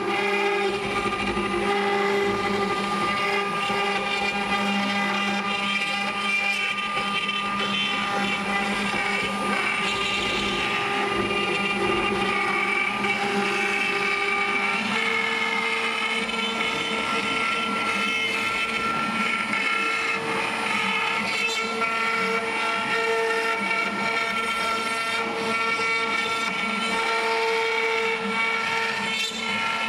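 ShopBot desktop CNC router spindle whining steadily as its bit carves a thick cherry panel, with the rush of the dust-collection hose behind it. The pitch steps up slightly about halfway through.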